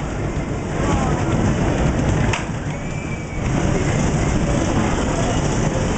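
Wooden roller coaster train setting off from the station, its wheels rumbling steadily on the wooden track, with one sharp knock about two and a half seconds in.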